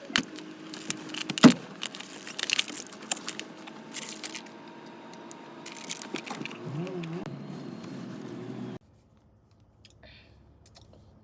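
Sped-up eating and handling noises: crinkling and tearing with many quick clicks and clatters, and a brief muffled voice near the end of it. It drops to near silence about nine seconds in.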